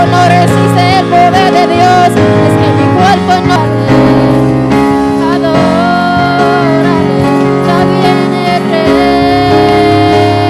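Live gospel worship music: electric keyboard chords and electric bass guitar under a voice singing long notes with vibrato.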